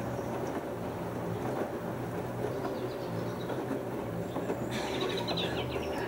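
LG Direct Drive front-loading washing machine tumbling a wash load: the drum turns and the clothes drop and rustle inside it, over the direct-drive motor's low hum.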